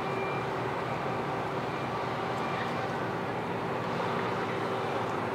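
Cargo ferry's engines running with a steady drone as the ship passes close by, several steady hum tones over a low rumble.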